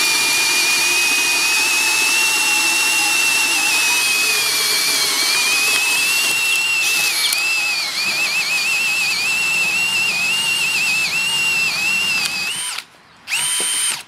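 Cordless drill in low gear boring a large hole in wood, its motor giving a steady high whine that sags and wavers as the bit loads up. It stops near the end, then gives one short burst.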